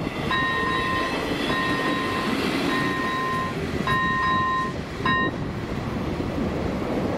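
A level crossing's electronic warning bell sounding a repeated beep, about one a second, which stops a little after five seconds in as the crossing clears. Under it a passenger train runs past over the rails.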